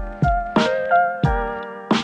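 Background music: an upbeat instrumental track with keyboard chords and a steady drum beat.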